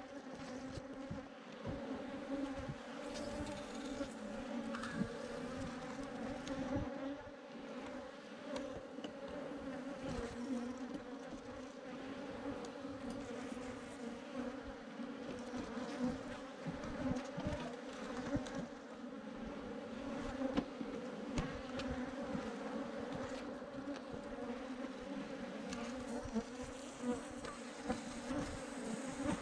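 A swarm of Africanized honey bees buzzing in a dense, steady hum, with irregular low bumps underneath.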